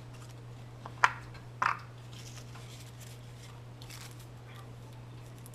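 Two short sharp clacks of hard objects being handled, about half a second apart, over a steady low hum.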